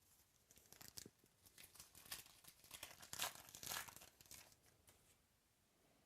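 Foil wrapper of a trading-card pack being torn open and crinkled by hand: a run of crackling rustles and tears, loudest a little past the middle.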